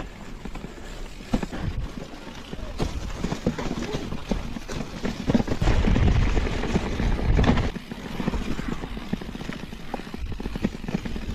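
Mountain bike riding over a rough dirt trail: tyres on dirt and stones, with the bike and its handlebar bag rattling and knocking over bumps, and wind buffeting the microphone, heaviest from about five and a half to seven and a half seconds in.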